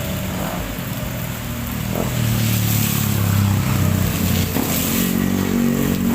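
Heavy rain hissing steadily, with a motor vehicle's engine running close by, its pitch dipping and then rising towards the end.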